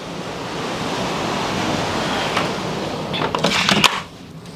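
Steady rush of wind and sea coming in through an open cruise-ship balcony door. About three and a half seconds in come a few clicks and knocks as the door is shut, and the rush cuts off.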